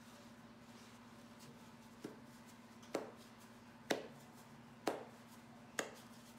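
Five sharp knocks about a second apart, made by dough being pressed into a metal muffin tin on a stone counter, over a steady low hum.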